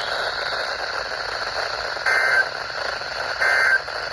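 Weather radio receiver hissing with static, then two short bursts of digital data tones about a second apart, starting about two seconds in. This is the pattern of the EAS/SAME End of Message code, sent in repeated short bursts to close an alert.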